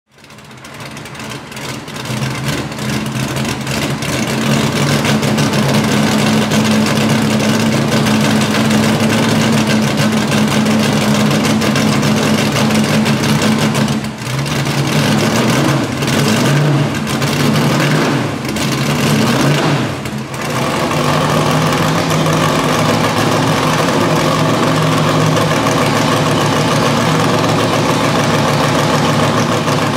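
Lola T70 Mk3B's Chevrolet V8 idling through open exhaust pipes, fading in over the first few seconds. About halfway through, the engine note dips and changes several times under throttle before settling back into a steady idle.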